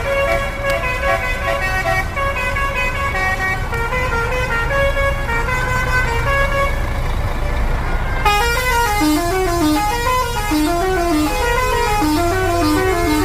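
Bus 'telolet' musical horn playing a tune of quick stepped notes over the bus's running engine. About eight seconds in it switches to a different, lower tune that bounces up and down.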